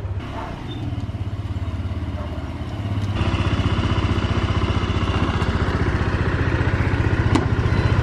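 Honda SH scooter's single-cylinder engine idling with a steady, fast pulse, louder from about three seconds in.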